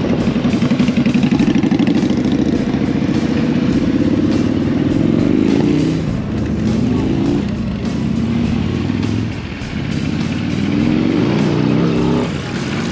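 Motorcycles riding off one after another, their engines running close by and rising in pitch as each one accelerates away, twice.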